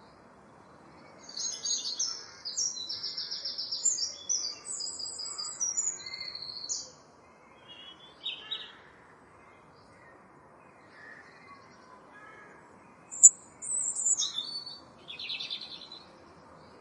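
Common blackbird singing: a long phrase of high warbling and twittering notes, then after a pause a second, shorter phrase that opens with a sharp click. Fainter bird calls sound in the background between phrases.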